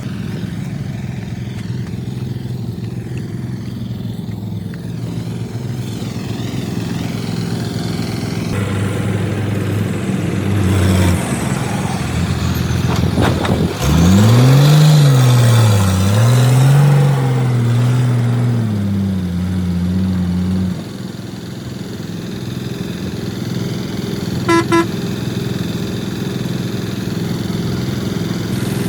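A heavy vehicle's engine runs steadily, then revs up and down for several seconds before settling back. Near the end a horn gives two short beeps.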